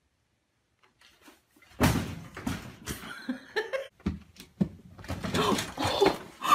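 Nearly two seconds of silence, then a busy run of thumps, knocks and rustling, with a few brief pitched sounds mixed in.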